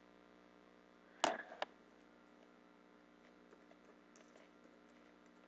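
Clicks of entering numbers into a computer calculator: one sharp, loud click about a second in, a smaller second click just after, then a few faint ticks a few seconds in, over a faint steady hum.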